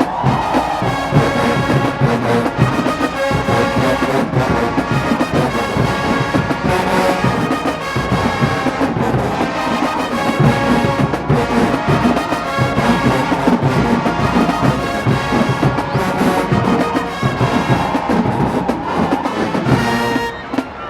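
Marching band playing: a full brass section over drums. The brass and drums play steadily and loudly, easing briefly near the end.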